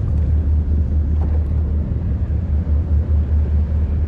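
Low, steady rumble of the passing tug Clyde S. VanEnkevort's diesel engines as it pushes its barge.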